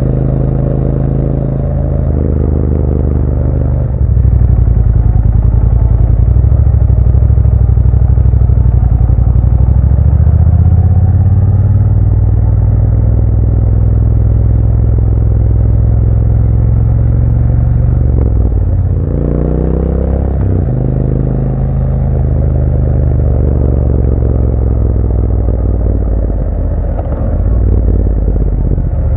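Motorcycle engine running steadily while riding, getting louder about four seconds in. About two-thirds of the way through, the engine note climbs and then drops back, as with a shift or a change of throttle.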